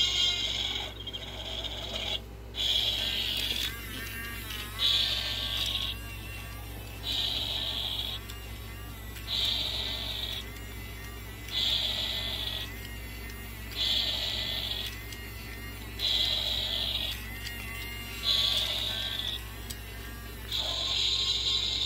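Battery-powered walking spray dinosaur toy: its small geared motor whirs as it walks, and its little speaker plays a short, loud electronic sound effect about every two seconds.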